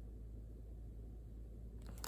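Steady low room hum; near the end, writing starts, a pen scratching on paper in short strokes.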